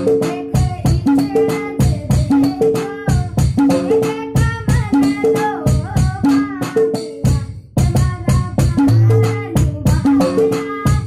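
Electronic octapad struck with sticks and played through an amplifier and speakers: a quick, even rhythm of drum hits and short pitched tones, with a melody over it. The rhythm breaks off briefly about two-thirds of the way through.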